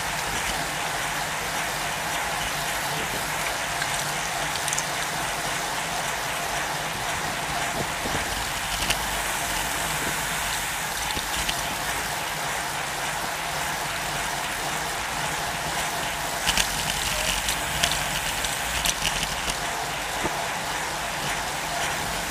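A bunch of road bikes rolling together: a steady rush of tyre and riding noise with freewheel hubs ticking, and a few sharp clicks about three-quarters of the way through.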